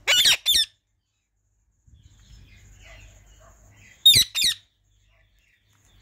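Pet parakeet giving two loud, shrill double squawks: one pair right at the start and another about four seconds in.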